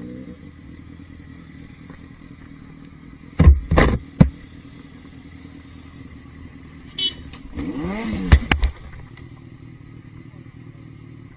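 A vehicle's engine running steadily, broken by a few loud knocks about three and a half seconds in. A burst of clattering noise with more sharp knocks follows near the eight-second mark.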